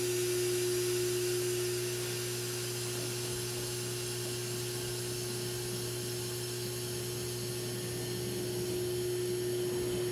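Electric train standing still, its onboard equipment giving a steady hum with one clear held tone and a hiss on top.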